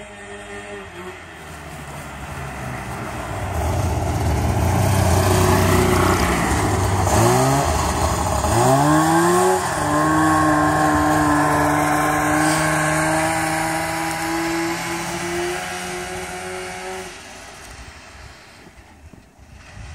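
1986 Trail Manta snowmobile engine growing louder as the sled comes closer, revving up twice in quick succession about halfway through, then running at a steady pitch before fading away near the end.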